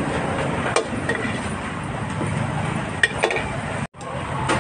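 Busy street-market background: a steady low rumble of traffic and people, with a few sharp clinks of utensils or glass, one about a second in and two close together near three seconds. The sound drops out for an instant near the end.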